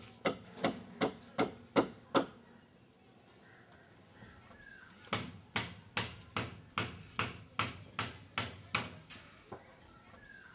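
Hammer blows on building timber, quick and evenly spaced at about three a second. They come in two runs with a pause of about three seconds between. Faint bird chirps sound during the pause.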